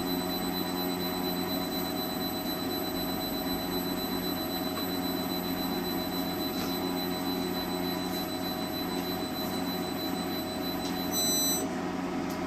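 Yaskawa A1000 industrial inverter (variable frequency drive) running on test: a steady high-pitched switching whine over a steady low hum. Near the end the whine briefly changes pitch, grows a little louder, then cuts off while the hum goes on.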